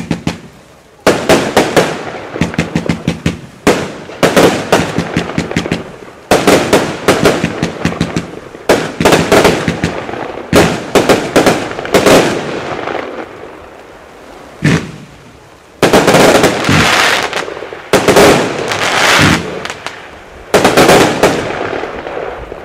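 Fireworks compound cake (Verbund) firing: groups of rapid sharp shots and aerial bursts that come every two seconds or so, with a short lull about two-thirds of the way through before further dense volleys.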